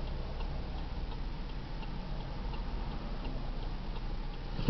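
A car's turn-signal indicator ticking steadily inside the cabin, over the low rumble of the idling engine.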